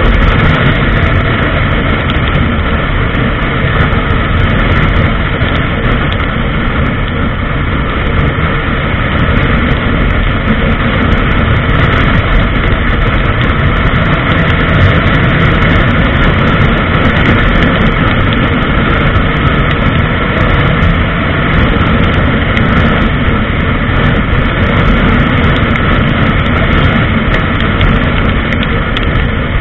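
Honda CBR1000RR's inline-four engine running at steady revs while cruising, mixed with heavy wind rush on the onboard microphone.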